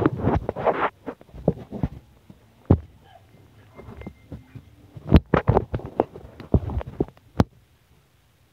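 Handling noise from a hand-held phone being carried about: irregular thumps, knocks and rubbing on its microphone, heaviest in the first second and again in a cluster of sharp knocks from about five to seven and a half seconds in.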